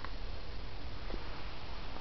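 Steady hiss and low rumble of background noise, with two faint soft clicks about a second apart.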